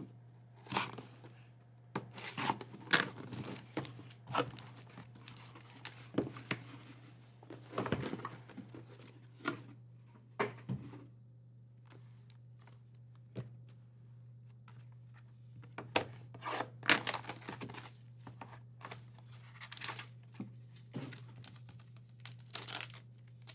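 Cardboard case of trading-card boxes being opened and its sealed boxes and packs handled: irregular ripping, crinkling and light knocks of cardboard and wrapping, quieter for a few seconds in the middle.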